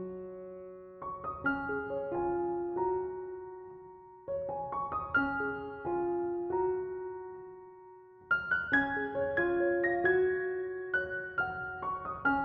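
Background piano music: gentle phrases of struck notes that ring and fade, with a brief lull about four seconds in and another about eight seconds in.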